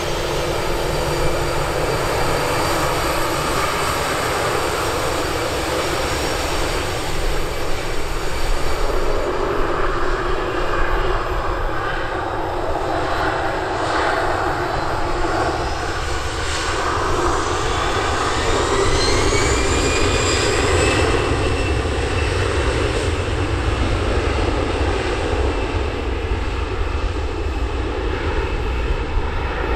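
Jet aircraft engines running steadily, with a whine that rises in pitch about two-thirds of the way through.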